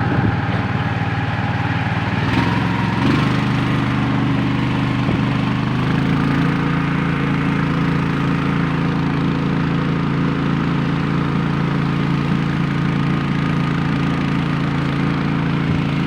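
Small boat engine running steadily, its pitch shifting about three seconds in and again about six seconds in, then holding even.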